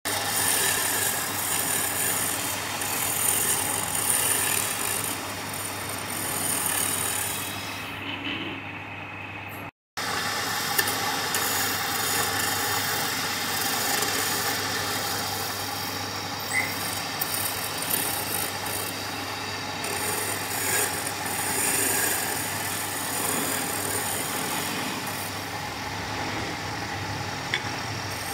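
Wood lathe running with a turning tool cutting the spinning wood: a steady motor hum under a shifting scraping hiss. The sound cuts out for a moment about ten seconds in.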